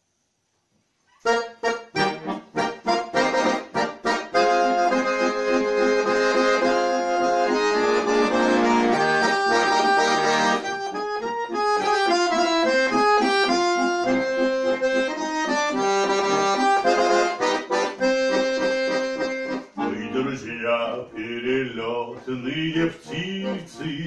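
Chromatic button accordion played solo as an instrumental introduction. It enters about a second in with short, detached chords, then plays a sustained melody over chords. The playing changes character about four seconds before the end.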